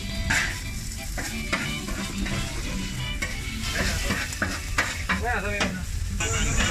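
Meat sizzling on a flat steel taco griddle while a wide metal blade scrapes and taps on the griddle, chopping and stirring it in quick, irregular knocks.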